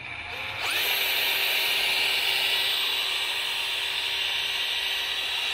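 SDS rotary hammer run with no load: its electric motor speeds up over about the first second, then runs at a steady speed with a steady whine.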